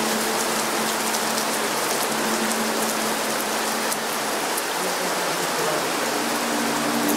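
Steady rain falling on wet pavement and trees: a constant, even hiss with scattered drop ticks.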